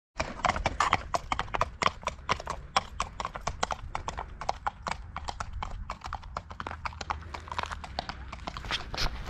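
Hooves of two horses walking on a tarmac road, clip-clopping steadily in a continuous, uneven patter of strikes.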